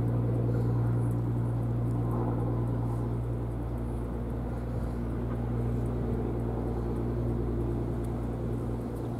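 Steady low mechanical hum, a deep even drone like a distant running engine or machine, easing slightly after the first few seconds.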